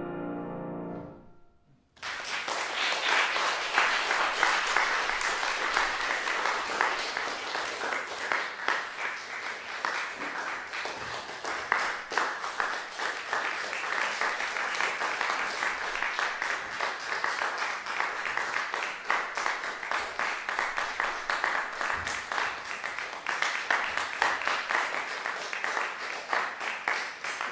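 A grand piano's final chord dies away, and after a brief gap a concert audience applauds steadily for the rest of the time.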